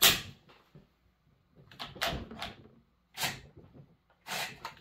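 A Proyama 50cc chainsaw's chain brake and chain being worked by hand, being checked: four sharp clacks and rattles, the loudest at the start.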